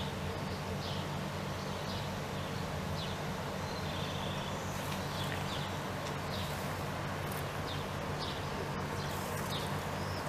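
Outdoor ambience: small birds chirping, short high calls repeating every second or so, over a steady low hum.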